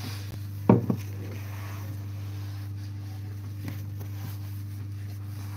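Steady low hum, with one short knock just under a second in.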